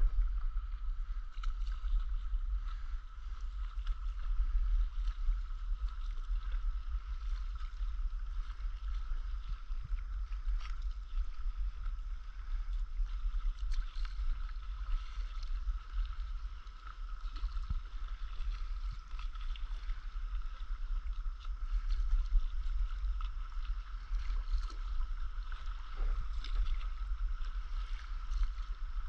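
Wind rumbling on the microphone over soft water noise as a stand-up paddleboard moves across the sea, with a steady high whine.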